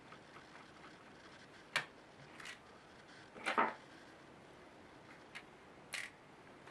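Scattered small clicks and taps from a tool and screws worked against the plastic and metal of an opened Asus K75VJ laptop, about five in all, the loudest a little past halfway.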